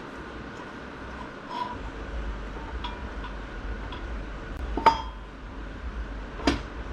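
Steel parts of an automatic transmission clinking as they are handled and a part is set down over a Torrington thrust bearing. There are a few light clinks, then a loud ringing clink about five seconds in and another sharp one near the end.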